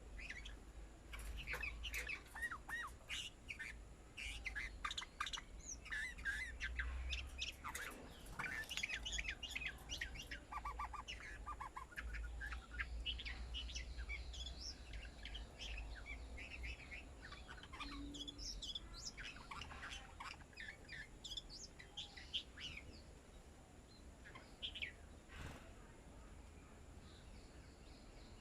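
A flock of small birds chirping while feeding, with many quick, overlapping calls that thin out to a few over the last several seconds, over a low steady rumble.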